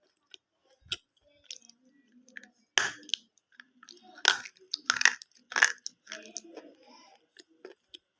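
Close-up biting and chewing of brittle, chalky pieces of a broken 'safe' sold as an edible crunching item: about five sharp crisp crunches, with softer chewing between them, a good crunch sound.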